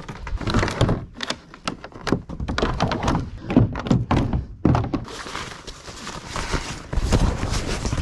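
Irregular hollow thunks and knocks as a kayak paddle and gear are set against and into a kayak's hull.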